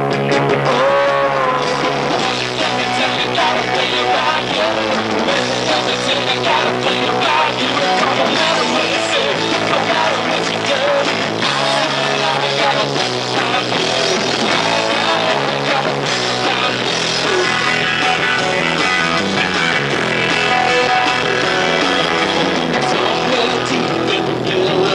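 Live rock band playing a song, electric guitars over a drum kit, loud and continuous.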